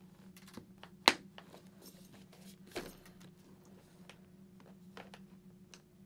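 Cheek pad snaps of a full-face motorcycle helmet being pressed home: one sharp click about a second in, a second, duller snap near three seconds, and light handling ticks between.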